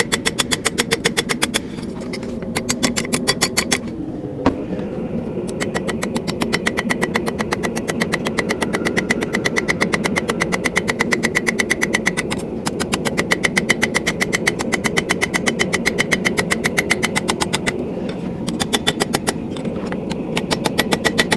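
Hammer striking hot steel on an anvil in quick, even blows, about five a second, with a ringing tone, rounding the quill of a forged steel feather; the hammering breaks off briefly a few times. A steady low hum runs underneath.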